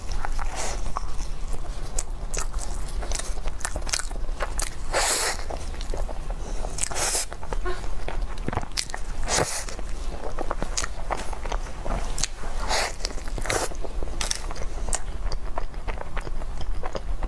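A cream puff with a crusty shell being bitten and chewed close to the microphone: many short crunches and crackles of the crust, with several longer spells of crunching.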